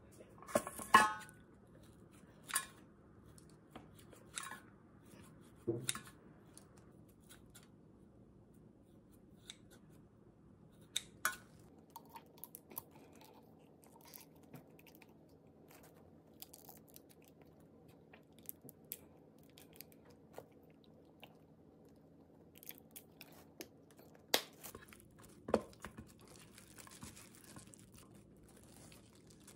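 Sparse kitchen food-prep handling: scattered sharp clicks and knocks of a container and utensils set down on the counter. Over the last few seconds comes soft scraping as sauced chicken is stirred with a silicone spatula in a stainless steel container.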